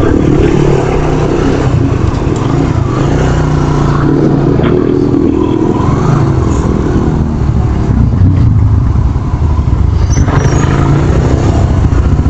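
Motorcycle engine running steadily while riding, with wind and road noise over it.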